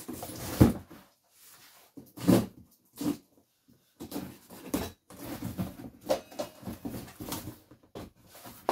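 Cardboard chainsaw box being handled and opened: a thump as it is laid on its side about half a second in, then irregular knocks, scraping and tearing as the tape is cut and the end flap pulled open.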